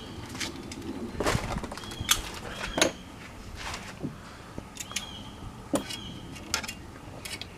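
A string of sharp, irregular knocks and clinks, like tools or metal parts being handled, with several short high chirps in between.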